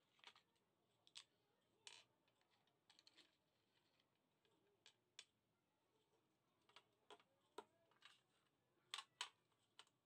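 Faint, scattered taps and clicks of small objects, a smartphone and a pencil case among them, being set down and slid on a wooden tabletop, with two louder clicks close together near the end.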